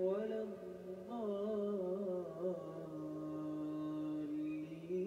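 Slow, chant-like vocal music: a voice gliding between notes and then holding long tones over a steady lower tone.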